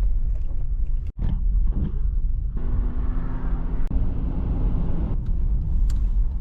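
Car driving: a steady low road and engine rumble, with a brief cut about a second in and a stretch of brighter noise in the middle.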